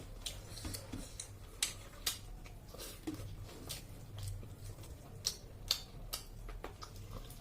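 Close-miked eating sounds: irregular sharp clicks and smacks of chewing and mouth noises, over a low steady hum.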